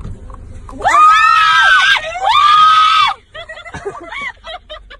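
A person screaming twice at a high pitch, each scream held for about a second, then breaking off into short broken voice sounds.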